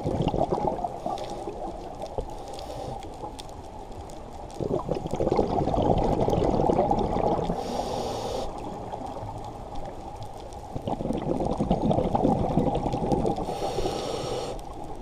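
A scuba diver's regulator breathing underwater: long rumbling surges of exhaled bubbles, broken twice by a short hiss of inhaled air, about eight seconds in and again near the end.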